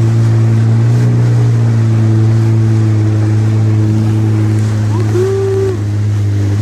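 Jet ski engine running at a steady cruising speed, a constant low drone with water rushing past the hull.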